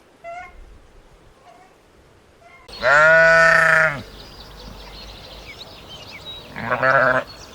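Goat bleating twice: a long bleat about three seconds in and a shorter one near the end, with faint birds chirping in the background.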